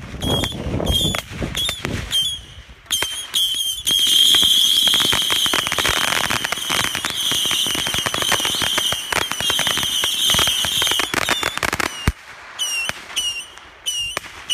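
Whistling fireworks going off: a string of short shrill whistles, each dropping off at the end, then one long steady shrill whistle over dense crackling and pops for about seven seconds, then more short whistles near the end.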